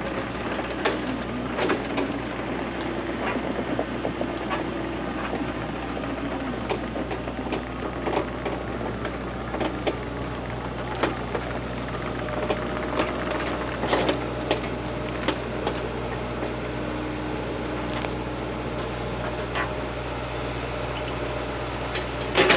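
Heavy machinery's diesel engine running steadily, with many scattered knocks and clanks of machine work.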